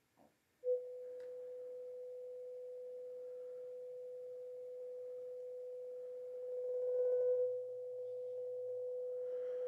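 A steady sine-wave test tone from a signal generator, played through a NAD 3020i amplifier into small bench speakers. It starts under a second in, grows louder about six and a half seconds in and drops back a little a second later, as the volume is turned. A hiss rides on the tone that the technician judges to be more than there should be.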